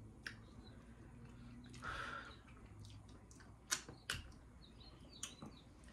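Quiet mouth sounds of people eating fufu and egusi soup by hand: a few sharp lip smacks and clicks spread through, with a short soft hiss about two seconds in.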